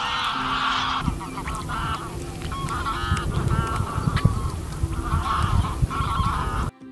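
A flock of geese honking in flight, many calls overlapping, with a low rumble underneath from about a second in. The sound cuts off abruptly just before the end.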